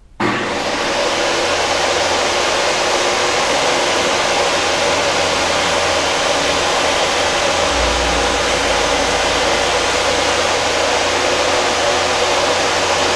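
Craftsman table saw started up, its motor whining up to speed within about a second, then running steadily and loudly while making the first rip cut, a rabbet along a strip held tight against the fence. A deeper rumble joins in for about a second just after the middle.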